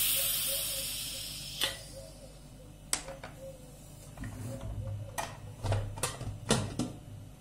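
Stovetop pressure cooker venting steam through its lifted valve with a loud hiss that fades out over about two seconds as the pressure drops. This is followed by a series of sharp metallic clicks and knocks as the lid is handled, turned and unlocked.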